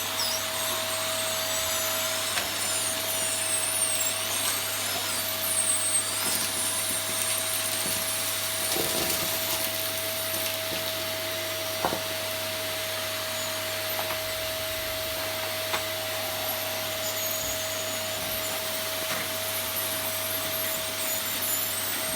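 Dyson Cinetic Big Ball Animal upright vacuum cleaner running steadily, with a constant motor whine over the rush of air, and a couple of sharp clicks as it picks up debris.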